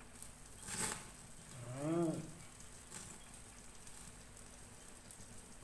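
Meat sizzling on a wire grill over a gas burner, a faint steady hiss. About two seconds in, a short pitched call or hum rises and falls in pitch, after a brief rush of noise just before it.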